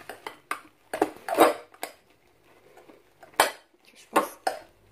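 A utensil knocking and scraping against a glass mixing bowl as slime ingredients are stirred, in a string of short, sharp clinks. The loudest comes about a second and a half in, followed by a quieter stretch of a second or so.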